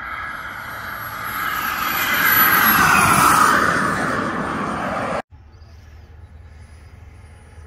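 Turbine engine of a radio-controlled model F-18 jet making a fast pass: a whine that grows louder, peaks, and drops in pitch as the jet goes by. It cuts off abruptly about five seconds in, leaving a fainter steady sound.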